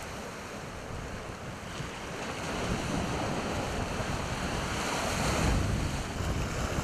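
Sea waves washing against shoreline rocks, with wind buffeting the microphone. It is a steady rush of noise that grows gradually louder.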